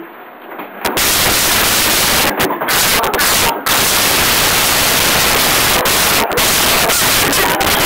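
Loud, harsh static-like noise with several brief dropouts, typical of an overloaded recording.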